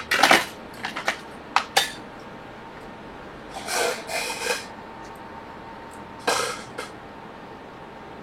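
Tiny metal screws and tools clinking and rattling in a small parts box, in a handful of sharp clicks followed by two short bursts of rattling.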